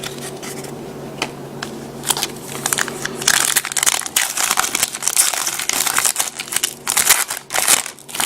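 A trading card pack wrapper being handled and opened, with dense irregular crinkling and crackling that starts about two seconds in.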